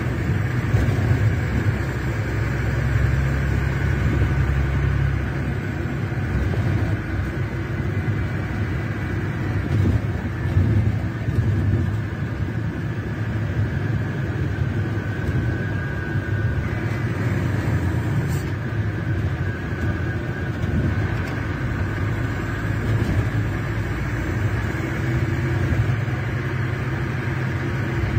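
Scania K380 coach's rear-mounted DC12 06 inline-six diesel (380 hp) running steadily, its sound mostly a low rumble.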